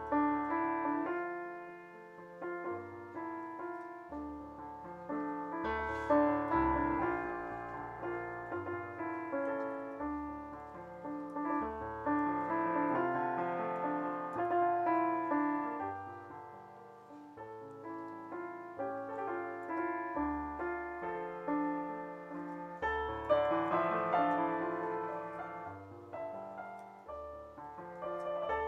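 A Chassidic niggun played on a digital piano: a flowing melody over changing bass notes.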